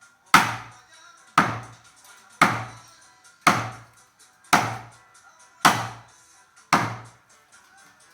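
Heavy hammer blows on wood: seven hard strikes, evenly spaced about a second apart, each with a short ringing tail.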